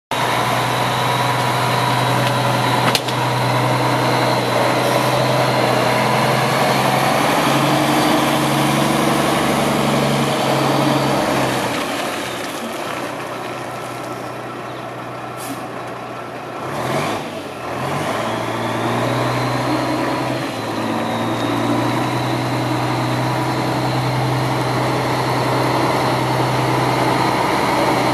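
1996 Mack RD690S dump truck's diesel engine running steadily as the truck drives by, fading in the middle as it moves off and growing louder again as it comes back close. A sharp click about three seconds in.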